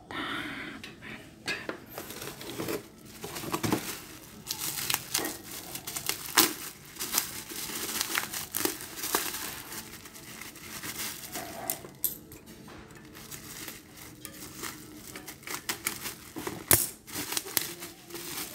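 Plastic bubble wrap crinkling and crackling irregularly as it is handled and pulled off old metal air variable capacitors, with a few sharp knocks and clinks of the metal parts, the loudest near the end.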